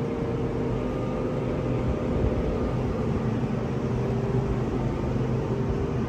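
Steady hum of a stationary Sydney Trains M set (Millennium) electric train at the platform, its air-conditioning and auxiliary equipment running, with several constant tones over a noisy drone.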